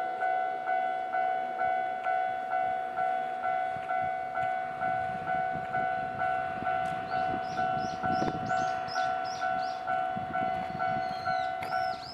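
Japanese railway level-crossing warning bell ringing steadily at about two strokes a second, the signal that a train is coming, and it stops just before the end. Birds chirp in the second half.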